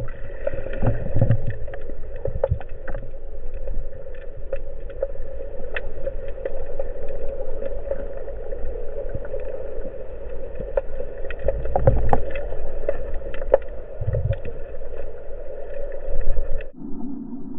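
Underwater sound heard through an action camera's waterproof housing: a steady hum with many scattered crackling clicks and a few low thumps. Near the end it cuts off abruptly and is replaced by a different, lower hum.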